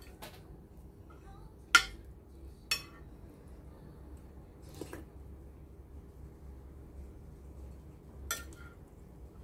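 Metal spoon clinking against a ceramic plate as food is scooped up: about five short, sharp clinks spread out, the loudest about two seconds in.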